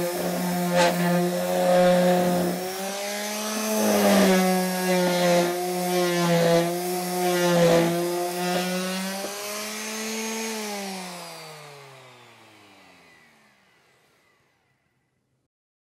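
Electric multifunction detail sander running on a wooden panel, its motor hum steady apart from a few short knocks. About ten seconds in it is switched off, and the hum winds down in pitch and fades away.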